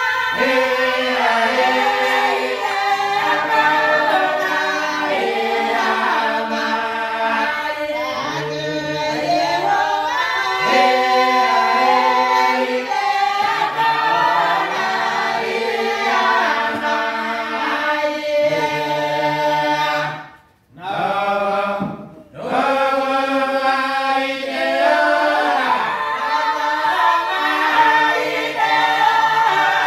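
A group of voices singing unaccompanied in several-part harmony, holding long notes that change pitch together, with two short breaks about two-thirds of the way through.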